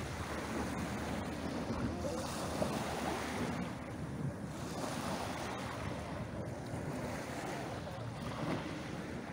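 Small waves washing in and drawing back over a shingle (pebble) beach, with wind rumbling on the microphone.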